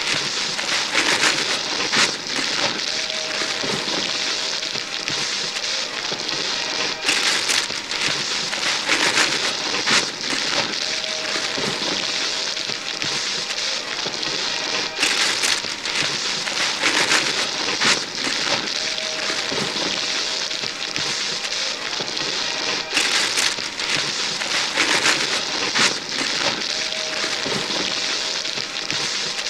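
Wrapping paper being torn and crumpled off gift boxes by hand: a dense, continuous crackling rustle with sharper rips. The same few seconds of tearing repeat about every eight seconds.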